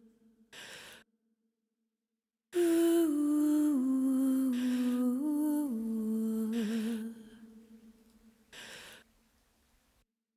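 A woman's voice sings a slow wordless melody, holding notes that step down and back up, with a little vibrato near the end. Soft breaths come before and after the phrase.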